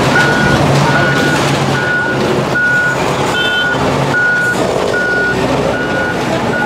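Komatsu wheel loader's reversing alarm beeping steadily, one high beep about every 0.8 seconds, over its diesel engine running.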